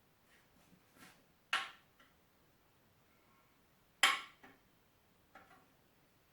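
Sharp metallic clinks of metal pieces knocking together: two louder ones about a second and a half and four seconds in, with a few fainter taps between.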